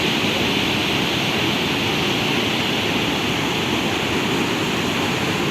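Iguaçu Falls: the steady, even rushing of heavy falling water.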